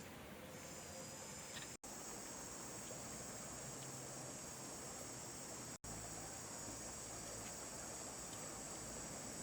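Steady high-pitched insect chorus, cutting out for an instant twice.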